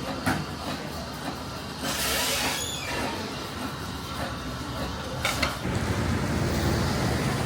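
Busy street background noise, a steady rumble with no clear single source, and a brief hiss about two seconds in.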